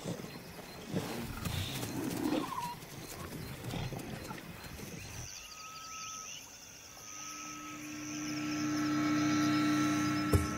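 A lion pride feeding on an impala carcass, with low growls, for about the first five seconds. Then music with long held notes comes in and swells.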